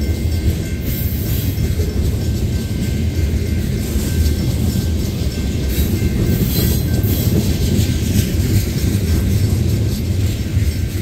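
Freight train of tank cars rolling slowly past, a steady low rumble of steel wheels on rail.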